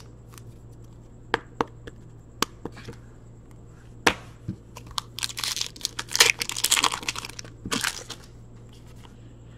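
A few light clicks and taps, then, about halfway through, a hockey card pack's wrapper being torn open and crinkled for a few seconds.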